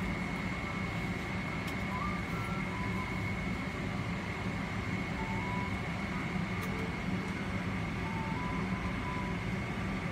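Steady cabin noise of a Boeing 777-300ER airliner in flight: an even rush of engine and airflow noise with a low hum and a thin, high steady whine.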